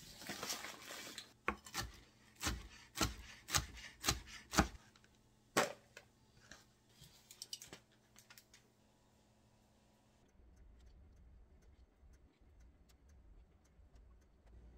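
Aluminium foil crinkling and crackling as roasted broccoli is handled on it and tipped into a plastic bowl, with a run of sharp cracks in the first six seconds. After about ten seconds only a faint low hum and light ticks remain.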